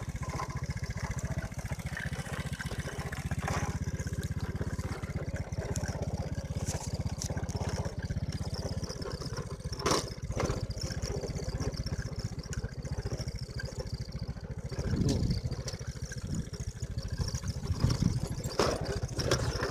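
Motor scooter engine running steadily while riding over a dirt track, with a sharp knock about halfway through and a couple of louder, rougher stretches near the end.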